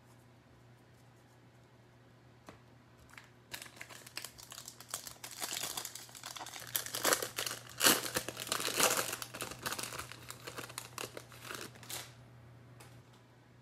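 Crinkling and tearing of a 2021 Bowman Baseball jumbo hobby pack wrapper as it is torn open by hand. The noise starts a few seconds in, is busiest past the middle, and stops shortly before the end.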